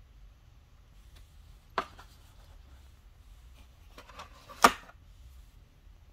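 Unboxing handling noise in a cardboard box: two sharp knocks, one about two seconds in and a louder one near the end, with a few light clicks just before the second, as the items are moved and the small glass oil bottle is lifted out.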